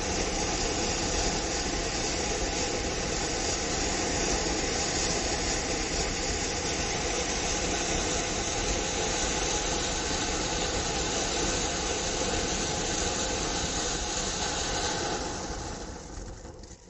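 Starvel Sunrise Peacock fountain, a fan-shaped multi-tube ground firework, spraying sparks with a steady hiss. The hiss fades away near the end as the tubes burn out.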